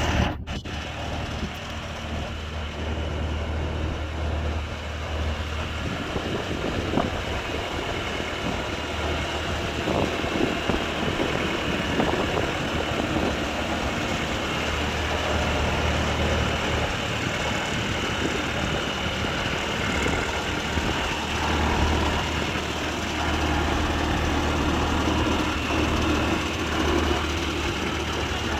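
Diesel engine of a Bobcat T590 compact track loader running steadily with an even low hum.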